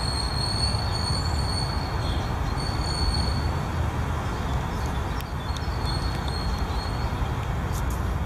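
Steady low rumble of city noise with a long, high, steady wheel squeal from a passing rail vehicle. The squeal fades about three and a half seconds in and comes back faintly for a couple of seconds.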